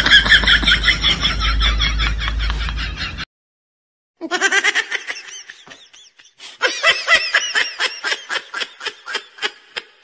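High-pitched laughter in fast repeated bursts. It breaks off about three seconds in, and after a short silence comes back in looser bursts that thin out toward the end.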